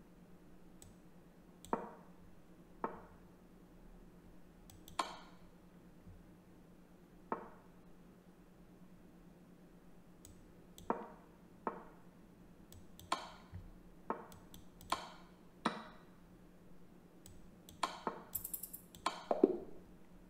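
Chess.com move sound effects: short wooden clicks, one for each move, about fourteen at uneven intervals, coming faster near the end, over a faint steady hum.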